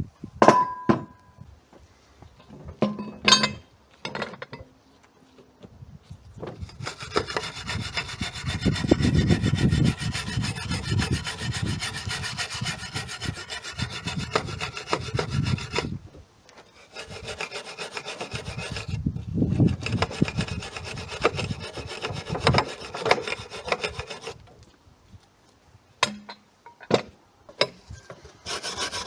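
Wire brush scrubbing a cast aluminium part to bare metal before welding: two long bouts of continuous scraping strokes, with a few sharp knocks and metallic clinks before and after.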